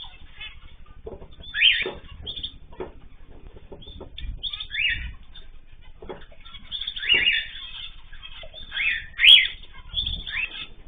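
Caged ornamental birds calling: short, sharp calls, several falling in pitch, coming every second or two at irregular intervals over a low background hum.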